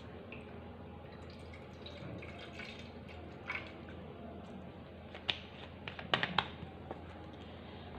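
Fish sauce pouring faintly in a thin stream from a plastic bottle into a ceramic bowl, then stopping; a few short, sharp clicks come about five to six seconds in.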